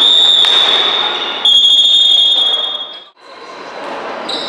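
Referee's whistle in a basketball hall, one long shrill blast that shifts slightly in pitch and grows louder about a second and a half in, then cuts off abruptly after about three seconds, leaving the echoing hall noise.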